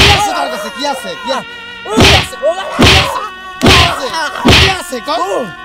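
Five loud, sharp whacks of a thin stick striking a person: one right at the start, then four more about a second apart from about two seconds in.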